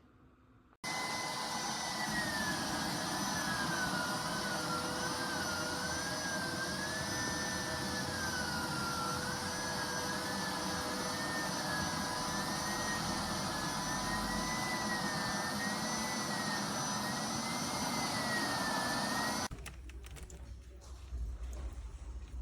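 Hoover PowerScrub XL carpet cleaner running, a steady motor and suction noise with a high whine that wavers up and down in pitch. It starts abruptly about a second in and cuts off near the end.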